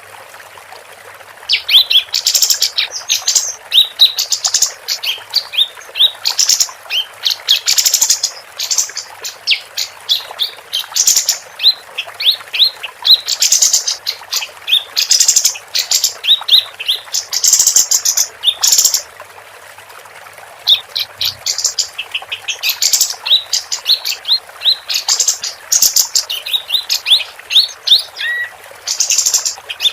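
Female kapas tembak singing in bursts of rapid, sharp downslurred chirps, with a short pause about two-thirds of the way through, over a steady background hiss.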